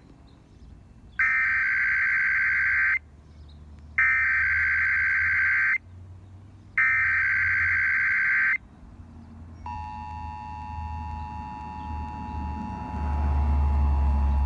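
Emergency Alert System header aired on FM radio: three bursts of warbling SAME data tones, each a little under two seconds with about a second between them. About a second after the last burst comes the steady two-tone attention signal, which marks the start of a Required Monthly Test. A low rumble rises under the tone near the end.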